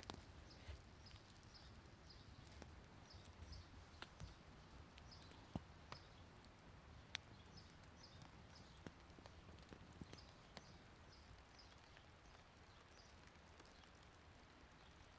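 Faint chirping of a small bird, short high notes repeated throughout, often in pairs, with scattered sharp clicks and snaps.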